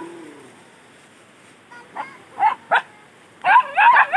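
A dog barking: two short barks, then a quick run of high yapping barks near the end.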